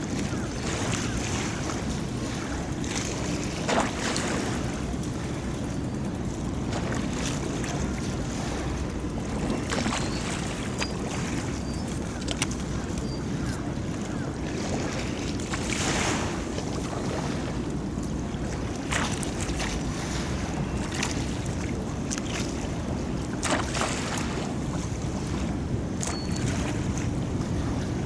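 Harbour waves lapping, with a short splash every few seconds over a steady low rush of water and wind.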